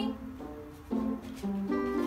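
Background music: a tune of plucked-string notes, each held briefly, with new notes starting about a second in and again near the end.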